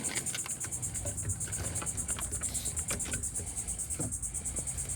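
Insects chirring steadily as a high, rapidly pulsing trill, with a few faint knocks beneath.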